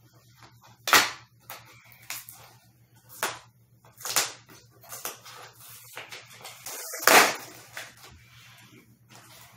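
Loud, irregular knocks and clunks of wooden bed panels and parts being handled and fitted together during furniture assembly, the loudest about a second in and again about seven seconds in, with quieter clicks and rustles between.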